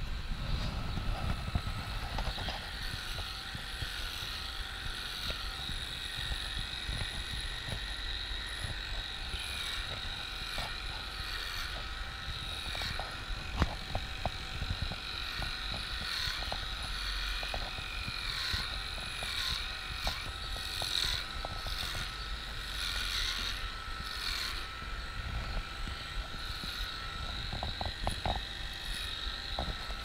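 Corded electric livestock clipper running steadily while shearing a cow's hair, its whine dipping briefly now and then as the blades bite.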